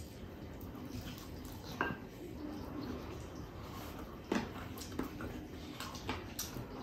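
A person eating by hand at the table: quiet chewing with a few short, light clicks and taps of dishes, about four in all.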